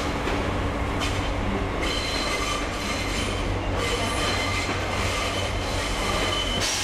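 SNCF CC 72100-class 'Nez cassé' diesel locomotive rolling slowly into the station with its diesel engine running as a steady low hum. From about two seconds in, its wheels squeal in thin high tones. A hiss starts right at the end.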